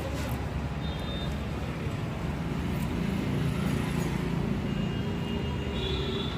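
Steady road-traffic noise, with a vehicle engine running louder near the middle, and a few faint clicks.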